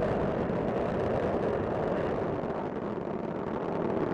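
Space Shuttle Discovery's solid rocket boosters and main engines during ascent: a steady, dense rumble of rocket exhaust noise.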